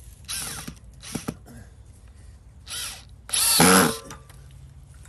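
DeWalt cordless drill run in four short bursts into a wooden post, the last burst the longest and loudest.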